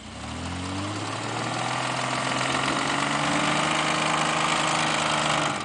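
Off-road truck engine revving up under load, its pitch climbing over the first second, then held at high revs until it cuts off sharply near the end.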